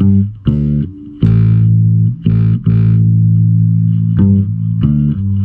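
Kala ukulele bass played through an iRig HD2 interface into a clean bass amp preset in GarageBand. It plays a short line of plucked notes, and one note in the middle is left ringing for over a second.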